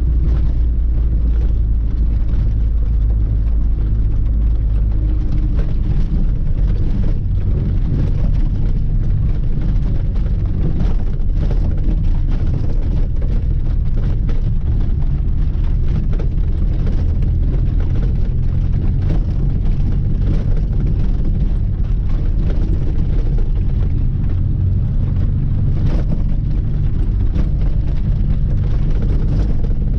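Lada 2106's four-cylinder engine running steadily as the car is driven, its note shifting a few times.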